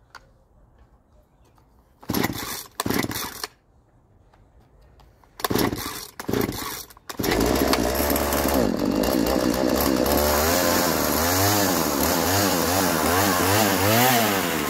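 Husqvarna 236 X-Torq two-stroke chainsaw being pull-started: a few short bursts on the first pulls, then it catches about seven seconds in and keeps running. From about ten seconds in the throttle is blipped, so the engine revs up and down repeatedly.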